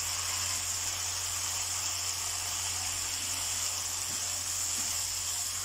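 Spiced cauliflower sizzling in hot oil in a wok over the flame: a steady frying hiss as the dish is dry-fried (bhuna) until cooked through. A steady low hum runs underneath.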